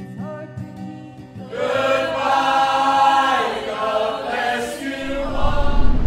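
Soft music, then about a second and a half in a group of men and women starts singing together in chorus.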